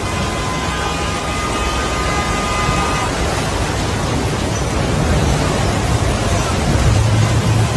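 Heavy rain and rushing floodwater: a dense, steady rushing noise, with a low rumble that swells near the end.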